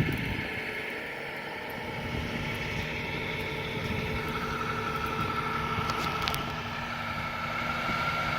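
Motor vehicle engines running steadily, with a thin whine coming in about four seconds in.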